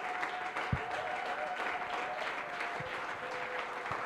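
Congregation applauding, dense steady clapping, with a faint held tone underneath and one low thump about a second in.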